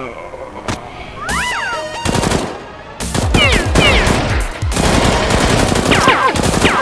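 Movie-style machine-gun fire sound effect: rapid bursts of automatic shots from about three seconds in, with high falling pings mixed among the shots.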